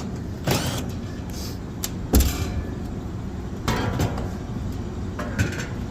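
A few knocks and metallic clanks of tools and parts being handled while a fan motor is unfastened, the loudest about two seconds in, over a steady low hum.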